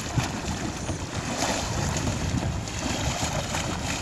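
Wind buffeting the microphone in an irregular low rumble, over the steady wash of water.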